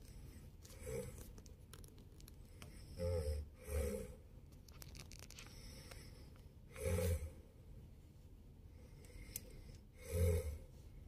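A man snoring loudly in his sleep, one deep snore every few seconds, with two in quick succession about three seconds in and a fainter one about a second in.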